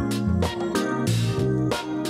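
Upbeat background music with a stepping bass line and a steady drum beat.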